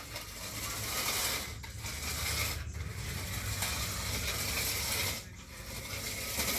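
Slot car running round the track: its small electric motor whirring and the car rattling along the track, the sound dipping briefly a few times as it goes round.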